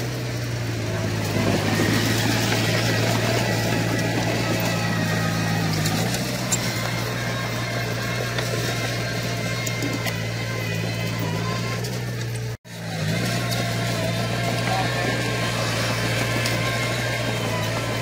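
Bulldozer's diesel engine running steadily with a low, even hum. The pitch dips slightly about six seconds in, and the sound cuts out for an instant about two-thirds of the way through.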